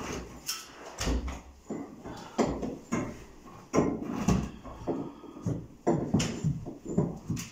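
Irregular knocks and scraping from hand tools working a fitted carpet's edge into place along the skirting board.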